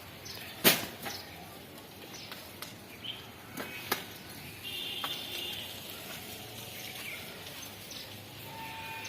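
A single sharp crack under a second in, followed by a few fainter clicks and some short high chirps over outdoor background noise.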